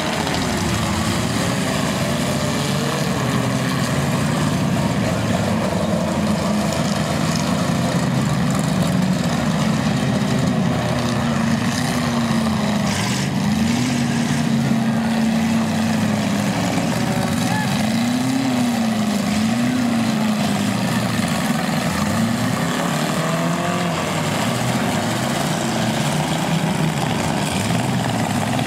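Several demolition derby cars' engines running and revving together, their pitch repeatedly rising and falling, with a bang about halfway through.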